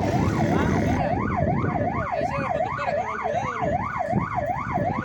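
Vehicle siren sounding a fast yelp, its pitch sweeping up and down about two and a half times a second, over low road and wind rumble.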